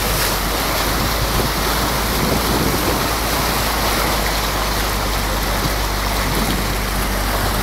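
Steady rush and splash of floodwater against the front of a vehicle driving through it, with a low hum underneath.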